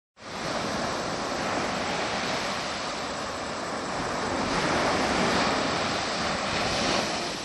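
Ocean surf, a steady rush of breaking waves that swells about halfway through and again near the end.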